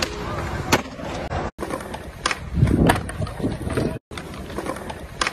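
Skateboard on concrete: about five sharp clacks of the board popping and landing, with the low rumble of its wheels rolling in between. The sound cuts out abruptly twice where one short clip gives way to the next.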